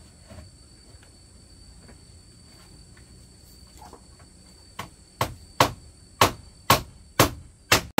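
A blade chopping with sharp, evenly spaced strikes, about two a second, starting about five seconds in. Before the chopping, a faint steady high-pitched insect drone.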